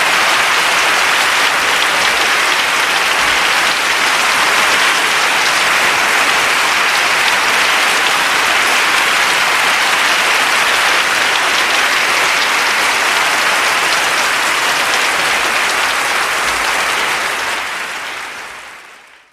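Applause from a large crowd, dense steady clapping that fades out over the last couple of seconds.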